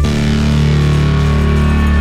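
Background music with sustained low notes, moving to a new chord at the start.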